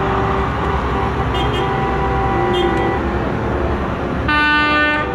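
Light-decorated parade trucks rumbling past at low speed, with a short horn blast near the end.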